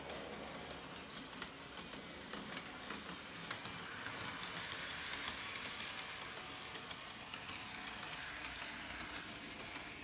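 Model trains running on the layout's track: a steady whirr with scattered light clicks of wheels over rail joints, growing louder for a few seconds midway as a locomotive passes close.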